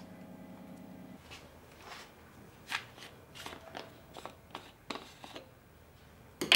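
A series of small, sharp plastic clicks and taps as a child handles a pill bottle and twists off its screw cap. Before them, a low steady hum cuts off about a second in.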